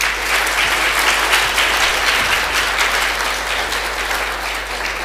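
Audience applauding: many people clapping together at once, the applause slowly fading.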